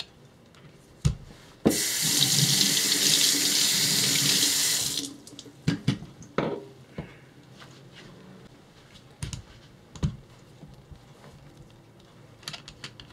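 Kitchen tap running hard for about three seconds as a whetstone is rinsed when switching from the 400 to the 1200 grit stone. Before and after it, scattered knocks and clicks of the metal stone holder being unclamped and handled on the board.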